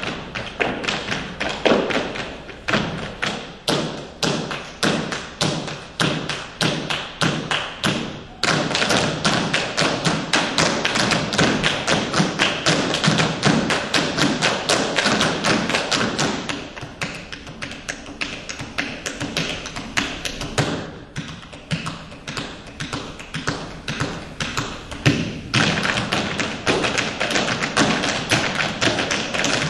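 Rhythmic taps and thuds, about three to four strikes a second at first, then from about eight seconds in a denser, louder run of strikes that eases off in the middle and picks up again near the end.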